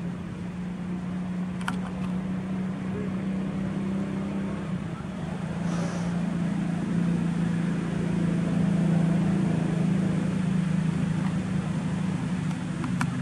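A steady low engine drone that drops slightly in pitch and grows louder about halfway through, with a couple of brief sharp clicks.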